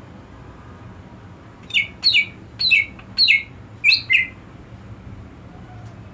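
Cucak ijo (green leafbird) calling: a quick string of about six short, downward-sliding chirps starting a couple of seconds in.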